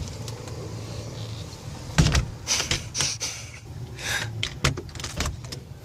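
Steady low hum of a car, with a sharp knock about two seconds in and a shorter one near the end.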